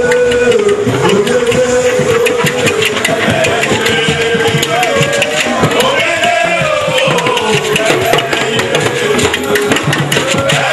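Music: quick hand-drum strokes under a sustained, wavering melody line.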